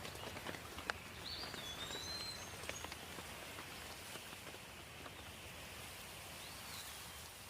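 Light rain falling, with individual drops clicking close by. A bird gives short whistled calls about a second in and again near the end.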